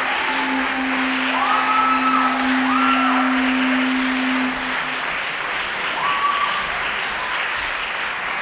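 Audience applauding steadily. A steady low hum runs under the clapping for about the first five seconds, and a few short rising calls sound above it.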